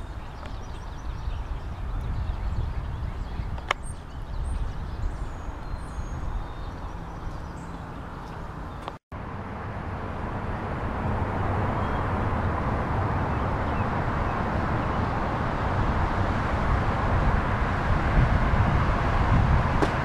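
Outdoor ambience: wind rumbling on the microphone, with birds chirping and one sharp click about four seconds in. After a brief dropout, a louder steady rush of wind and traffic noise takes over and slowly grows.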